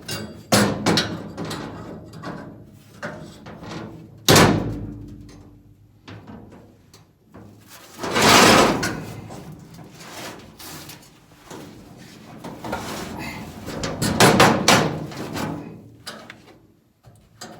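Irregular metal clanks and knocks from sheet steel, clamps and tools being worked on a car's floor pan, with several loud hits about four, eight and fourteen seconds in.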